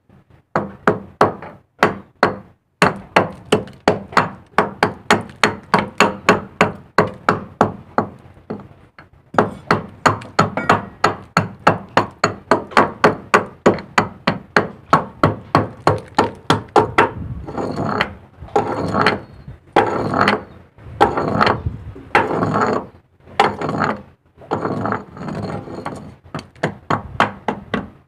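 Hand hammer striking a chisel held against rusty steel, metal on metal, in a steady run of about three blows a second. From a little past halfway the strikes come more slowly and ring.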